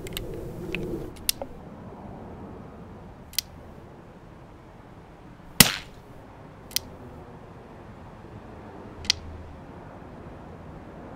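One suppressed shot from a Chiappa Little Badger break-action rifle fitted with a SilencerCo Sparrow 22 suppressor, about halfway through. Around it come several sharp clicks and some handling noise near the start.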